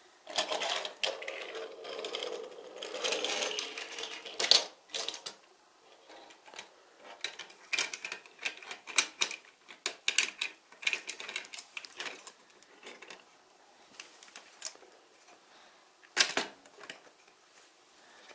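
Plastic building-block pieces clicking and rattling as small toy cars are handled and set onto a toy car transporter's ramp and deck. A busy rattle for the first few seconds, then scattered sharp clicks, and one loud click near the end.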